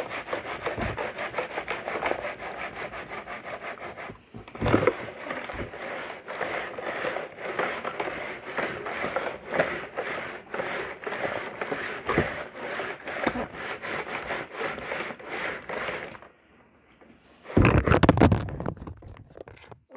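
Washing machine running its wash action, a fast, rhythmic rubbing and churning. It stops about four seconds before the end and is followed by a short, loud clatter.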